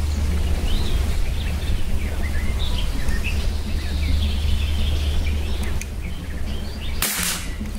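Birds chirping over a steady low rumble, then about seven seconds in a single sharp crack of a Baikal 512 break-barrel spring-piston air rifle firing a pellet at a tin can.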